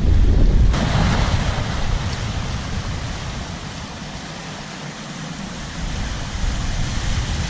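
Sea surf washing in over shore rocks, with wind buffeting the microphone in a low rumble. The wash eases a little midway, then builds again.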